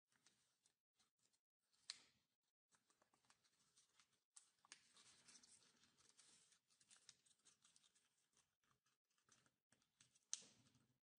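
Faint rustling and crinkling of origami paper being folded and creased by hand, with a sharper crisp crease about two seconds in and again near the end.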